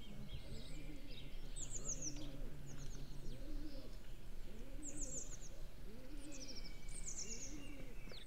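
Birdsong: small birds giving short runs of quick, high chirps that fall in pitch, over a pigeon cooing low and repeatedly, about once a second.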